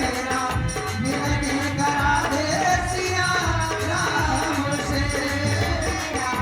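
Indian devotional bhajan music: an organ carries the melody over a steady tabla rhythm.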